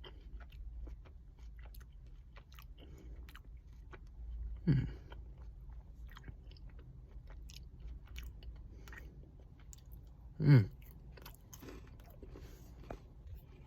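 A person chewing a KitKat Crunchy Caramel bar in the mouth, with many small crisp crunches. Twice, about five and ten seconds in, there is a brief, louder sound from the voice that falls in pitch.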